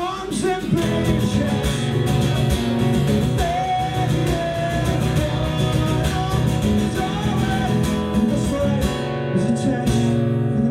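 Acoustic guitar strummed in a steady rhythm in a live acoustic punk song.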